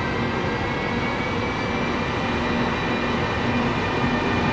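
FS E.402 electric locomotive hauling a passenger train slowly into the station: a steady rolling rumble with a few held whining tones from its motors and equipment.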